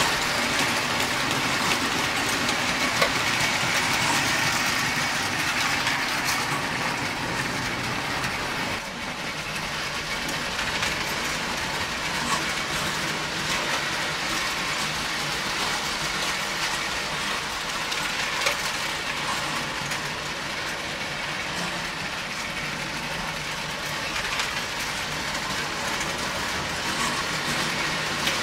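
About 100-year-old Lionel prewar toy trains, a #33 Standard Gauge and a #150 O-gauge engine, running around tinplate track: steady running noise of their electric motors and metal wheels on the rails, with small clicks, a little quieter from about nine seconds in.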